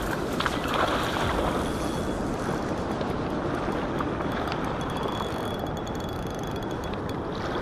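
River water rushing over the gravel shore, with wind on the microphone. A hooked asp splashes at the surface near the start.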